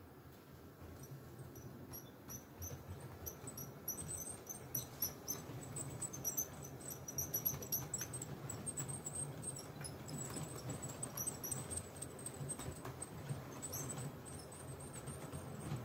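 Model container freight train rolling past on the layout's track: a steady low rumble with clicks from the wagon wheels and many short, high squeaks from the wheels.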